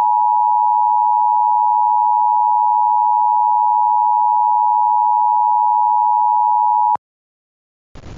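Emergency Alert System attention tone: a loud, steady electronic tone held without change, cutting off suddenly about seven seconds in.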